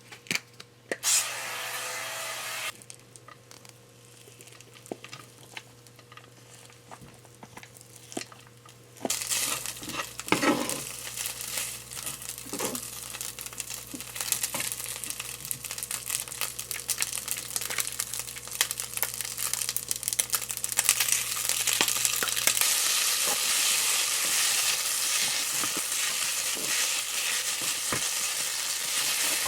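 Chicken and rice stir-frying in a pan: a hissing sizzle with the clicks and scrapes of stirring. After a brief hiss near the start and a quieter stretch of scattered clicks, the sizzle sets in about nine seconds in and grows louder toward the end.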